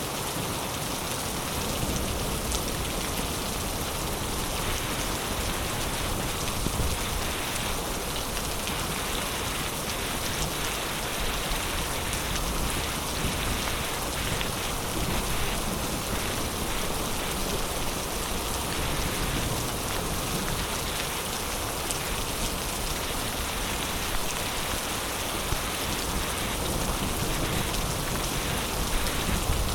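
Heavy rain falling steadily: a dense, even hiss of rain on surfaces, flecked with the ticks of individual drops.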